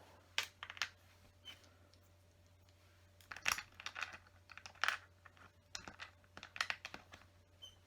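Small plastic clicks and crackles of LEGO bricks being handled and pressed together, in separate short bursts several times.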